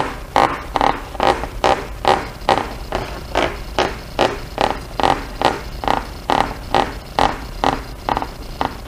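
Evenly spaced clicks, about two and a half a second, as the idle adjustment cable's threaded fitting is turned clockwise onto the throttle body.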